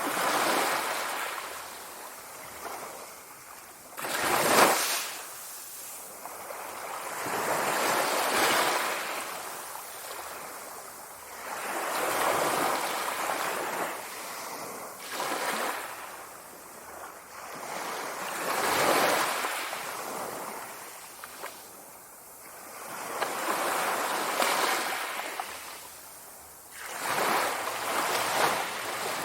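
Sea waves washing onto a shore, a surge of surf rising and falling about every three to four seconds. The sharpest, loudest crash comes about four and a half seconds in.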